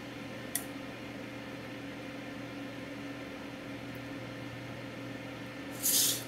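Steady background hum over a hiss, with a short click about half a second in and a brief high hiss near the end.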